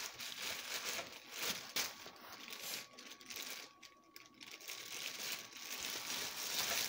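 Plastic bread bag crinkling as it is handled, in uneven bursts with a quieter stretch in the middle.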